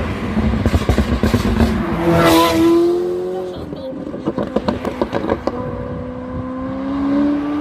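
A sports car accelerating hard past, its engine note climbing, with a rush of passing noise about two seconds in. A run of sharp clicks follows, then a second car engine climbs slowly in pitch near the end.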